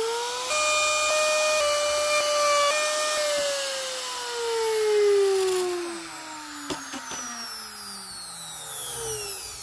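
Compact palm router's motor finishing its spin-up and running at a steady high whine for about three seconds, then switched off and winding down in a long falling whine. There are two faint clicks late in the wind-down.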